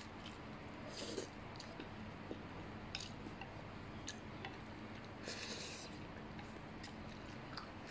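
A person slurping and chewing instant noodles in curry soup, with two short slurps, about a second in and about five seconds in, and a few light clicks between them.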